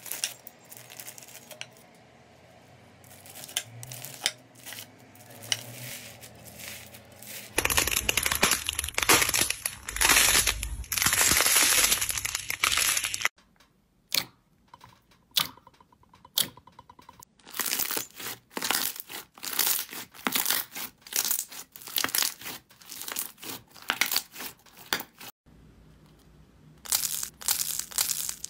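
Slime being cut, pressed and squeezed by hand, giving wet crackling and popping sounds. It starts with a crackly stretch, turns to loud dense crackling about a third of the way in, then gives way to sticky squelches repeating about once a second in the second half.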